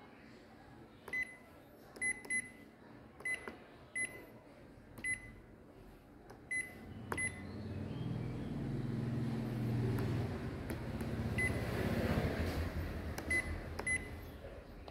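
Ricoh MP 4002/5002 copier touch panel beeping at each key press: short high beeps, about a dozen, most in the first seven seconds and a few more near the end. From about eight seconds in, a low machine hum swells up and holds, louder than the beeps.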